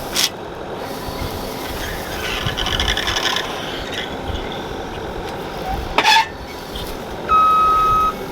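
Skid steer running steadily while pulling fence posts, with a rasping scrape a couple of seconds in and a sharp knock about six seconds in. Near the end its reversing alarm starts beeping as it backs up.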